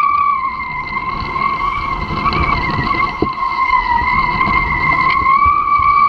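A high, steady whistle from a kitefoil rig moving at speed over the water. Its pitch wavers slightly, over a rough rumble of wind on the microphone.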